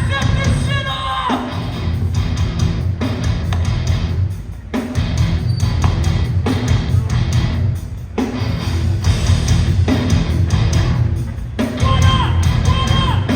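A live hardcore band playing a song: heavy distorted guitars, bass and drums, dropping out briefly twice, with a voice over the music near the start and near the end.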